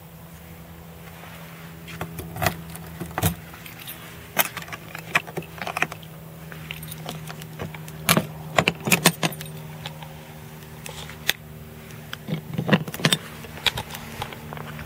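Irregular clusters of sharp clinks and jangles, like small metal objects being handled, over a steady low hum.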